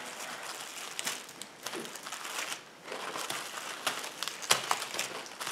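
Plastic cling film crinkling and rustling as gloved hands stretch and press it over a soap mould, with a few sharp crackles.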